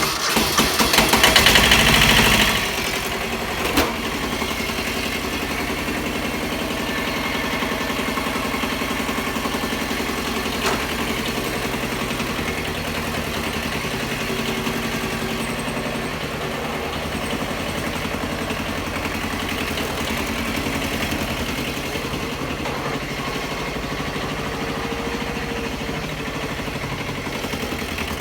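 Tractor engine being cranked and catching about two seconds in, then idling steadily, with a couple of single clicks.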